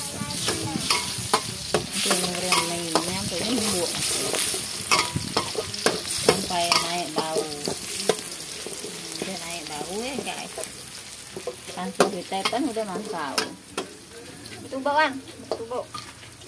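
Food sizzling in hot oil in a wok while a metal spatula stirs it, scraping and clicking against the pan.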